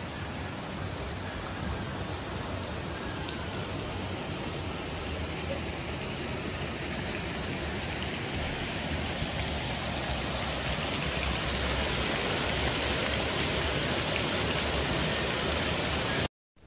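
Heavy rain pouring steadily, an even dense hiss of a tropical downpour that cuts off suddenly near the end.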